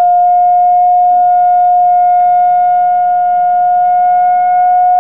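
Gauss meter's audible tone: a loud, steady whistle-like tone held at one pitch throughout.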